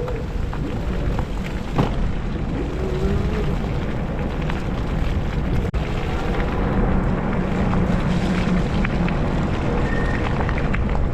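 Steady rumbling wind noise buffeting the microphone of a moving e-bike, mixed with road rumble, with scattered small clicks and rattles.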